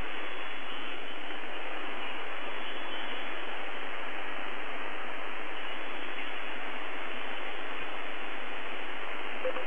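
Steady shortwave radio static hiss from a receiver tuned to the UVB-76 'Buzzer' frequency, thin and boxy like radio audio, with no buzzer tone or Morse beeps heard; one faint low click about eight seconds in.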